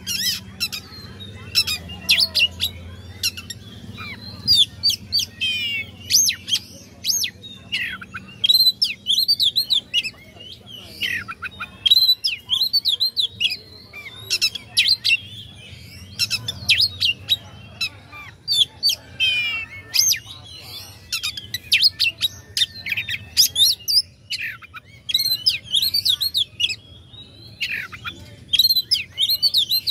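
Oriental magpie-robin (kacer) singing a fast, varied song of chirps, whistles and rising and falling notes, with only short pauses, over a faint low hum. It is the kind of full, aggressive song that bird keepers play to provoke rival magpie-robins into singing.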